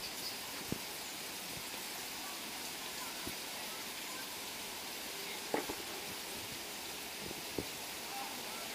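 Steady outdoor hiss with a few faint short clicks scattered through it.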